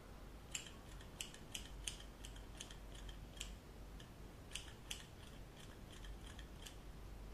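Hair-cutting scissors snipping in a quick, irregular run of small sharp snips, some in close pairs, trimming the last bits of hair.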